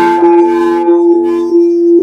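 Large singing bowl rimmed with a suede-covered wooden mallet, singing a steady low hum with bright overtones that wavers slightly as the mallet circles the rim.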